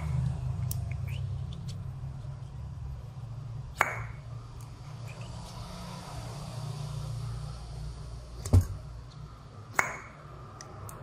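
Three sharp metallic taps, each with a short ring, spaced a few seconds apart over a low steady hum; the second tap is the loudest.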